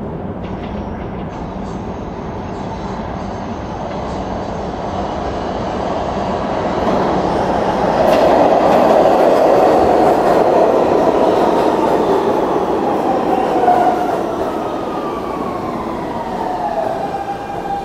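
R160B subway train with Siemens propulsion pulling into a station. The rumble of its wheels on the rails grows louder as it arrives and passes, then its traction motors whine in several falling tones as it brakes to a stop.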